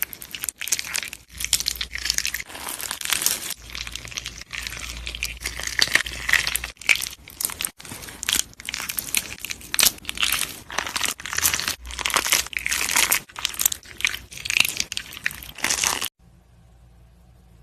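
Close-up crunching and crackling of a crumbly material being crushed, a dense run of rapid crackles that stops abruptly near the end.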